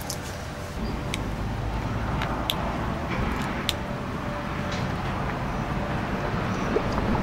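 Steady low rumble of outdoor background noise, with a few faint clicks scattered through it.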